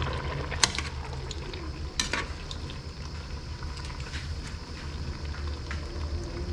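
Ladle stirring and scraping in a cooking pot of bamboo shoots in coconut milk, with two sharp knocks of the utensil against the pot, one about half a second in and one about two seconds in, and lighter taps after them.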